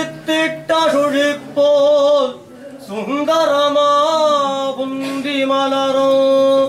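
A man's solo voice chanting a kattiyam, a ceremonial praise-recitation to Ramanujar, in a sing-song intonation: short chanted phrases, a brief pause about two and a half seconds in, then a long phrase that settles into a held note and stops at the end.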